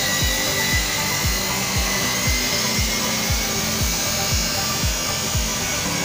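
Background music with a steady kick-drum beat, about two beats a second, over a steady hiss.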